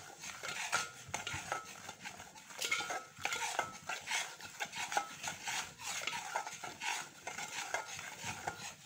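A slotted metal spatula stirring and scraping a thin semolina-and-egg halwa mixture around a metal pot, with repeated metal-on-metal scrapes and clinks.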